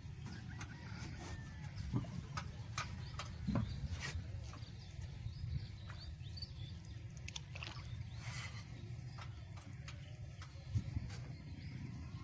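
Open-air rural ambience: scattered short bird calls and chirps over a steady low rumble, with a few faint clicks.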